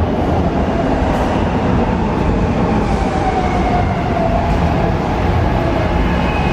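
SEPTA Market-Frankford Line M4 subway-elevated train moving alongside the platform: a loud, steady rumble of wheels on rail with a motor whine slowly falling in pitch as the train slows.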